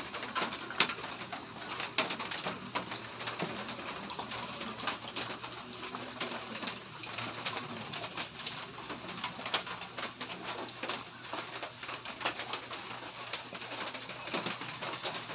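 Close-up eating sounds: chewing and lip smacks as noodles and rice are eaten by hand, with many small sharp clicks throughout.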